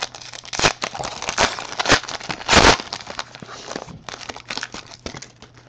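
Plastic trading-card pack wrapper crinkling as it is handled and torn open, with a louder rustle about two and a half seconds in.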